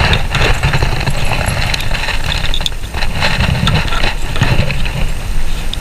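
Cabinet cam locks being turned tight with a hand screwdriver: scattered clicks, knocks and rattles over a steady low rumble.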